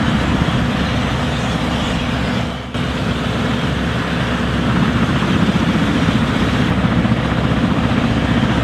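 Sikorsky-Boeing SB-1 Defiant coaxial-rotor helicopter flying, its rotors making a loud, steady, fast beat. The sound dips briefly about two and a half seconds in.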